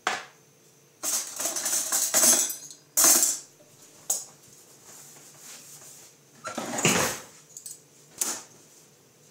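A stainless-steel bowl and kitchen utensils clinking and clattering against the counter as they are handled and set down, in several separate bursts.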